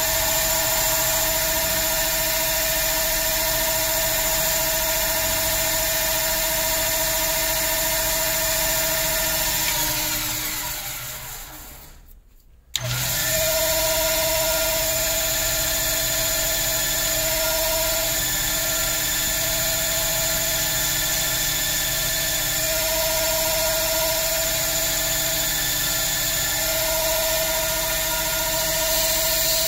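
Small cue lathe's electric motor spinning a pool cue shaft, a steady whine. About ten seconds in it winds down to near nothing, then cuts back in abruptly a couple of seconds later and runs steadily again.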